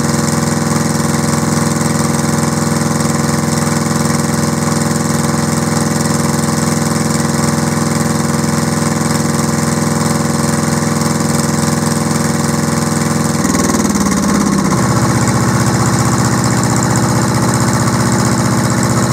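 Deutz F2L511 two-cylinder air-cooled diesel engine running steadily. About two-thirds of the way through its engine note shifts to a new speed and it runs on a little louder.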